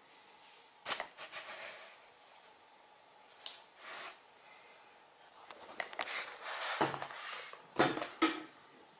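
Handling noise from hands working around a multirotor frame and its gimbal: a scatter of sharp clicks and knocks with rustling between them, beginning about a second in, with the two loudest knocks near the end.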